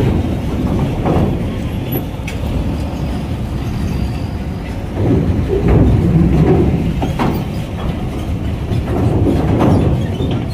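Heavy trucks driving off a ferry's ramp: a loud, continuous diesel rumble that swells about halfway through and again near the end, with a few sharp clanks.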